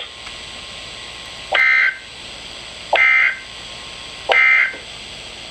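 Emergency Alert System end-of-message code: three short, buzzy two-tone data bursts about a second and a half apart over a steady broadcast hiss. They signal the end of the alert.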